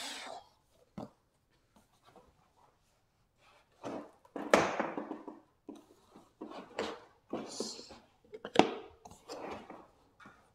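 A large cardboard shipping box and its styrofoam packing being handled: irregular scraping and rustling, with a sharp knock late on.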